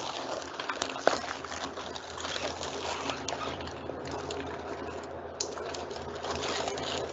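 Walk-in freezer's evaporator fans humming steadily, with footsteps crunching and crackling on ice underfoot. Plastic strip curtain rustles as it is pushed aside at the start.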